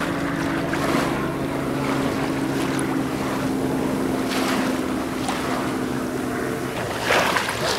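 A boat motor running at a steady pitch, over wind and lapping water. The motor tone drops away near the end, where there is a louder rush of wind and water.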